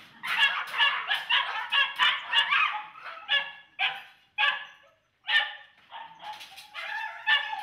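Caged dogs barking over and over, one call after another with a brief lull a little past the middle.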